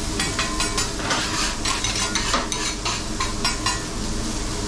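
Salmon frying on a hot teppanyaki griddle, a steady sizzle, with frequent short clicks and scrapes of metal utensils working on the steel plate.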